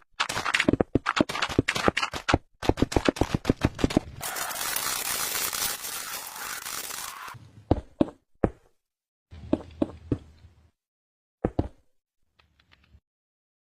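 A rapid run of sharp knocks or taps for about four seconds, then a hissing noise lasting about three seconds that cuts off suddenly, followed by a few scattered knocks.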